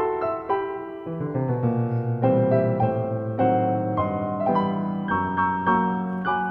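Background piano music: a gentle melody of quick successive notes over held bass notes.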